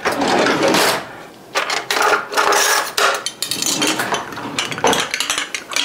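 Clattering, scraping and tapping as a long kitchen utensil is worked into a bottle of thick sauce to loosen it, with many quick knocks.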